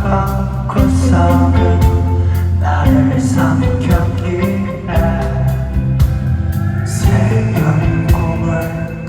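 Live rock band playing with a singer: drums and guitar under a sung vocal line, with a note held near the end.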